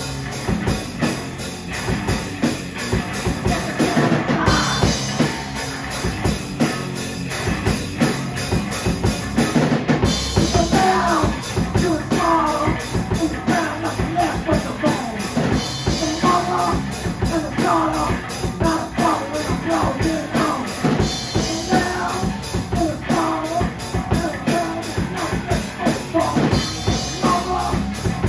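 Live rock band playing a song: electric guitar, electric bass and a Premier drum kit.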